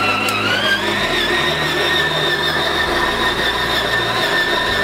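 Stand mixer motor running at speed 4 with its dough hook kneading brioche dough: a whine that rises in pitch as the motor speeds up, then holds steady from about a second in.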